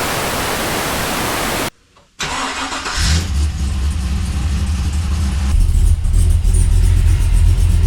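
A Holden VX SS Commodore's LS1 V8 starting about two seconds in, catching with a brief flare and settling into a deep, steady rumble that grows heavier a few seconds later. Before it there is an even hiss that cuts off suddenly.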